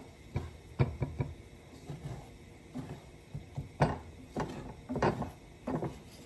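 A cooking utensil knocking and scraping against a frying pan while scrambled eggs are stirred: a dozen or so short, irregular clacks, the loudest about four and five seconds in.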